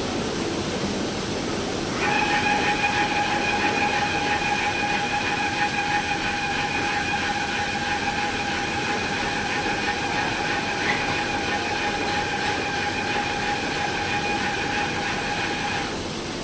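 Commercial washing machine running with a steady mechanical rumble. A steady, high whine joins in about two seconds in and cuts off near the end.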